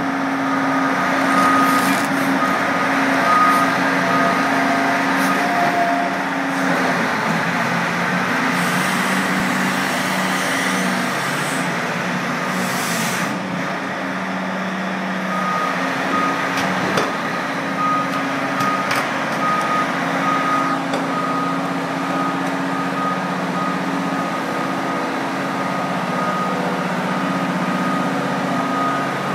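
Diesel engines of a CAT 6030 hydraulic mining excavator running steadily, with a high-pitched warning alarm beeping at regular intervals for the first few seconds and again through the second half.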